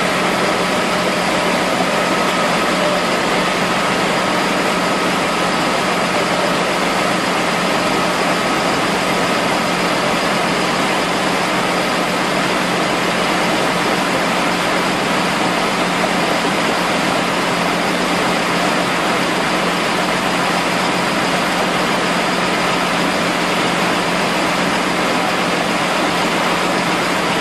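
Wheel loader's diesel engine idling steadily under a constant rush of muddy floodwater.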